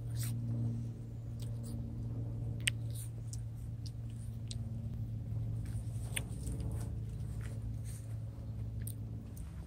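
Scattered light clicks and rustling over a steady low hum.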